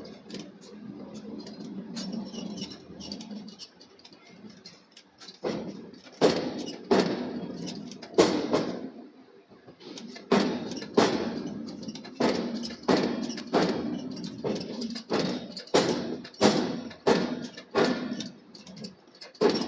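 Forging hammer striking hot steel in a steady run of blows, about one and a half a second, starting about a quarter of the way in, with a short pause in the middle.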